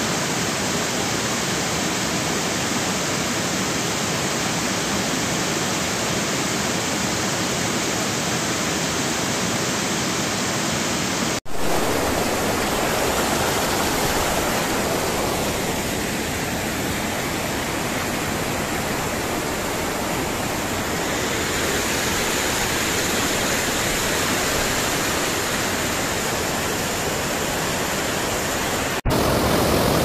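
Steady rushing of a tall multi-tiered waterfall and of water tumbling over the rocks of the stream below it. The sound breaks off and changes abruptly twice, about eleven seconds in and near the end.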